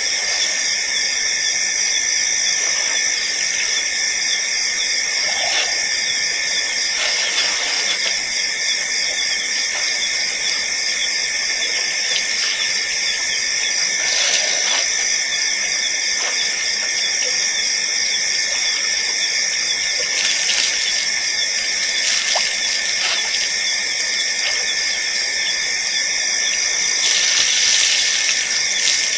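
Steady, high-pitched night chorus of insects, continuous and finely pulsing, with a few faint ticks here and there.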